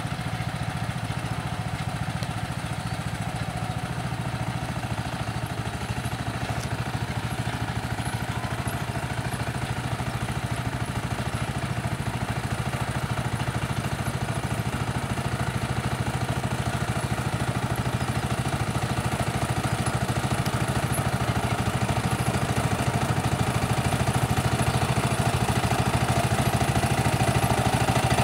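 Homemade garden tractor's engine running steadily as it pulls a rear furrowing implement slowly through tilled soil, growing gradually louder towards the end.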